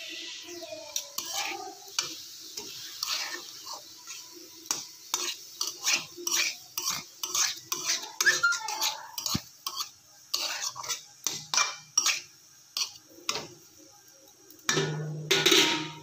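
Metal spatula scraping and clinking against a metal kadai as greens are stirred and turned, in a string of short scrapes about one or two a second, with a louder burst of sound near the end.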